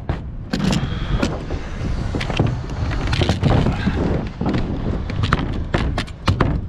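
OSB sheathing panel being handled and set down on wooden roof trusses: scraping and a scatter of light knocks, over a steady low rumble.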